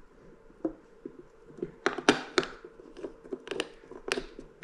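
Irregular sharp clicks and taps as a brass finial knob is worked against the glass shade and the threaded centre rod of a ceiling light, the thread not catching because the shade is held off level.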